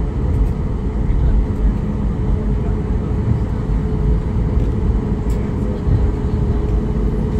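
Cabin noise of a Boeing 737 MAX 8 taxiing: a steady low rumble from the engines at taxi power and the airframe rolling over the taxiway, with a steady hum running through it.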